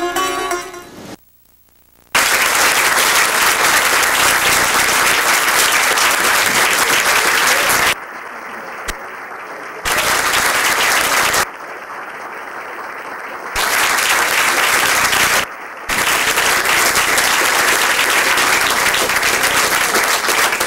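Music ends about a second in, then a room of people applauding steadily. The applause drops abruptly to a quieter, duller level a few times as the recording is cut.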